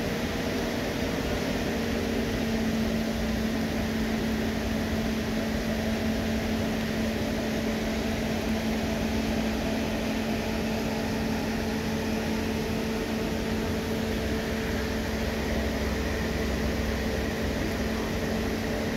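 A steady mechanical hum with a constant low drone and a fainter higher tone, unchanging throughout.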